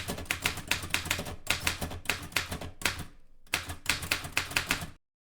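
Typewriter keys clacking in quick succession, about six strokes a second, with a brief pause about three seconds in; it stops about five seconds in.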